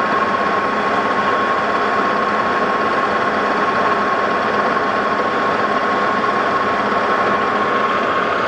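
Metal lathe running steadily with the chuck spinning, a constant high whine over its gear and motor noise, while a boring bar is hand-fed to cut a step inside the spindle's bore.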